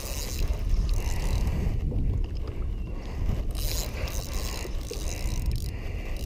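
Wind rumbling on the microphone and water noise around a small boat, with a spinning reel being cranked against a hooked fish on a bent rod.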